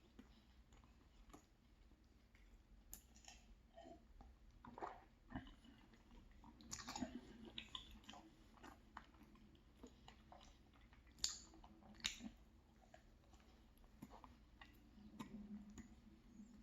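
Close-up eating sounds: a person chewing and biting into a chocolate-chunk muffin, soft mouth noises with scattered small clicks and a few louder smacks, the loudest about eleven seconds in.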